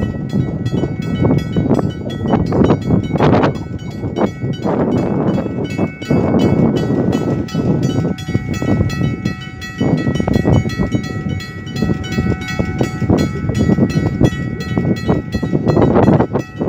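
Level crossing warning bell ringing in rapid, even strokes while the half barriers come down and stay down, the signal that a train is approaching, over a low rushing noise that swells and fades.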